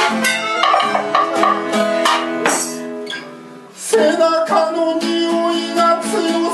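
Live band music: a strummed acoustic guitar, a melodica holding notes, and drums and a tambourine struck with drumsticks. The music thins out just past the halfway point, then comes back in on a sharp hit with a man singing.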